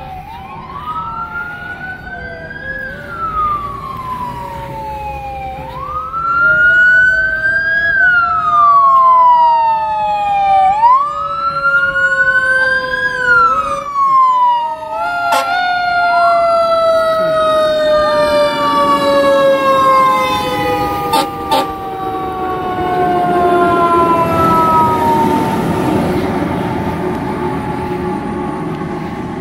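Fire apparatus sirens: a wail siren rising and falling about every five seconds, then from midway a siren tone winding down in long, slow falling glides. A heavy truck engine's rumble grows near the end as fire trucks approach.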